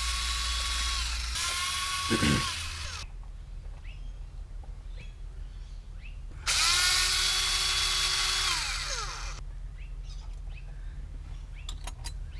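A small high-speed power tool run in three bursts, each spinning up to a steady whine and winding down again, with a thump about two seconds in and a few light clicks near the end.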